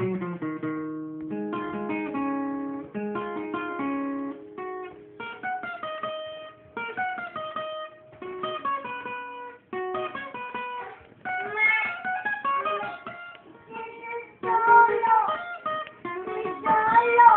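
Acoustic guitar played in bachata style: a picked melody of single notes mixed with chords.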